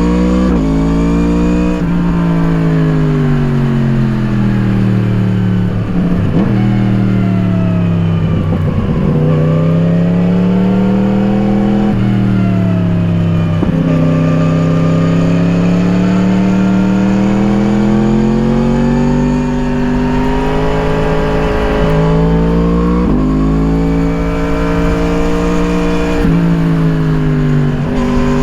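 2017 Yamaha MT-10's crossplane inline-four with an Akrapovič slip-on exhaust, heard onboard while riding. The engine pitch repeatedly climbs under throttle and sinks off throttle, with several short breaks in the sound where the pitch jumps. A low rumble sits underneath.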